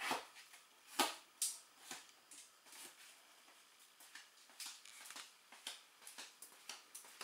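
Scattered light clicks and taps at an uneven pace, with a sharper knock about a second in.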